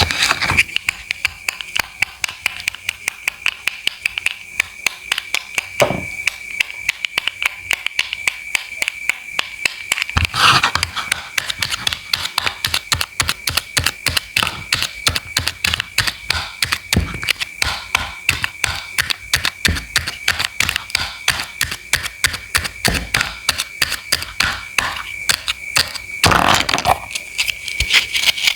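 A knife chopping produce on a cutting board in quick, rhythmic strokes, several a second, with a couple of heavier cuts along the way. A steady high whine runs underneath.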